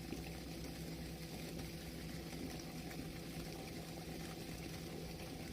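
Faint, steady rush of water flowing out through a sluice gate, with a constant low hum beneath it.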